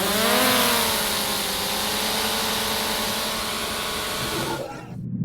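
Small quadcopter drone's propellers whining, the pitch rising and then settling into a steady hum over a hiss, cutting off abruptly near the end.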